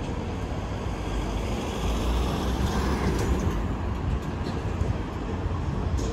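Street traffic noise: a steady low rumble that swells about two to three seconds in.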